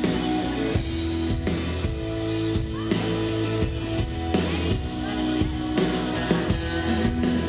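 Live rock band playing an instrumental stretch between sung lines: electric guitar chords held over a steady drum-kit beat, with no voice.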